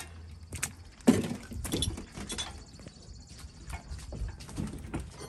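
Metal clanking and chain rattling from handling chains and lifting gear around an engine hung on a shop engine crane, with a sharp metal knock about a second in.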